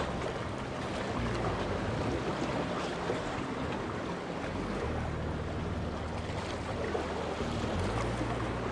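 Small waves washing against rocks at the water's edge, with wind rumbling on the microphone.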